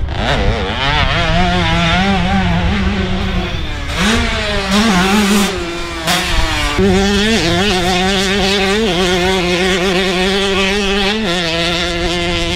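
2005 Honda CR125 two-stroke single-cylinder engine revving on the track, its pitch rising and falling with the throttle. There are several sudden jumps in pitch through the gears.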